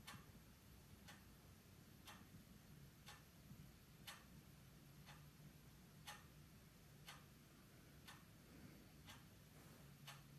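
Faint, regular ticking, one sharp tick about every second, over a low steady hum.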